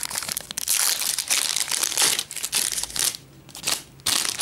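Shiny trading-card pack wrapper crinkling and crackling as it is pulled out and handled, with a pause of about a second near the end before the crinkling starts again.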